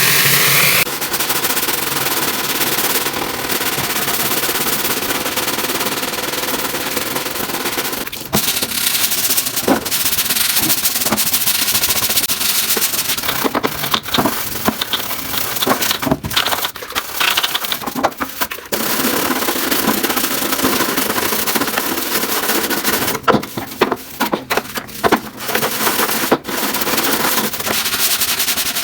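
Loud, steady noise of cleaning a greasy kitchen, in stretches that cut off abruptly and start again many times.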